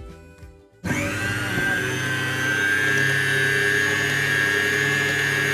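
Inalsa electric stand mixer switched on about a second in, its motor spinning the wire whisk in the empty stainless-steel bowl. It runs steadily with a high whine over a low hum.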